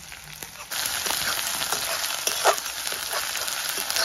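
Chopped onions, cumin, ginger and green chillies sizzling in hot oil in an aluminium kadai, the sizzle rising sharply about a second in, with short scrapes of a metal spatula stirring them against the pan.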